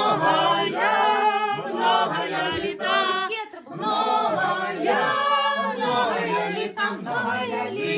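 A small group of people singing together without instruments, in long held phrases broken by short pauses for breath.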